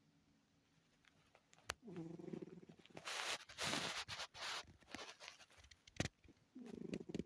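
A sleeping cat snoring: a low, short snore about two seconds in and another near the end, with a breathy rush of noise and a few small clicks in between.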